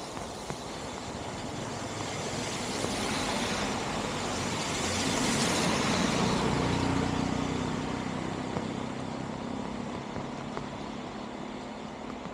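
A motor vehicle passing by, its sound building to a peak about six seconds in and then fading away.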